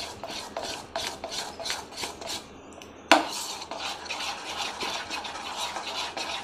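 Metal spoon stirring thick maida and semolina batter in a bowl, scraping in quick rhythmic strokes of about four a second, with a sharp knock of the spoon against the bowl about three seconds in, after which the scraping turns faster and more continuous.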